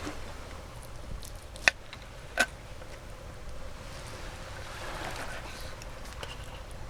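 Steady rush of sea waves washing in, swelling and easing, with a few sharp clicks, two of them loud, a couple of seconds in.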